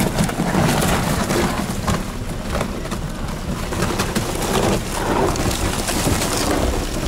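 Aufeis ice cracking as a crack spreads through it: a run of sharp snaps and crackles with low, wavering creaks and groans.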